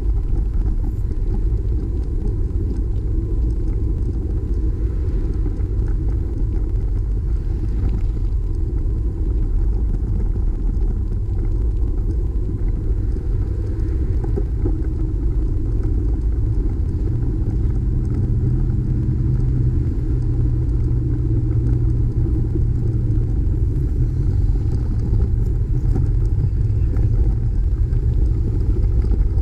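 Steady low wind noise buffeting the microphone of a bike-mounted camera while cycling along a street, with traffic noise; a deeper engine hum from a vehicle comes in about two-thirds of the way through.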